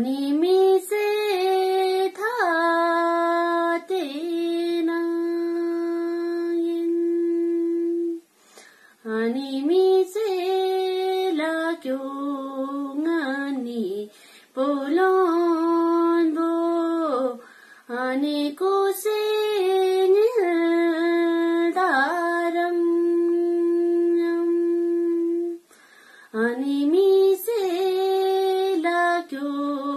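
A woman singing solo and unaccompanied: a slow melody in phrases a few seconds long, broken by short breath pauses, with a long held note early on and another near the end.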